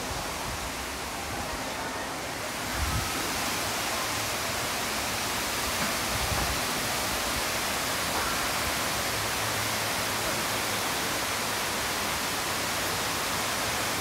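Steady rushing hiss of a tall man-made indoor waterfall pouring down a planted wall onto a paved floor, growing a little louder about three seconds in.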